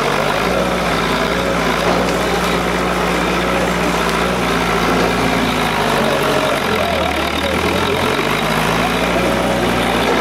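A motor vehicle's engine idling steadily, its low hum shifting pitch a few times, with voices faint in the background.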